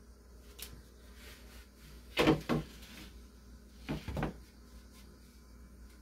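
Wooden latch bar and refrigerator door knocking against each other, in two short double knocks about two seconds apart.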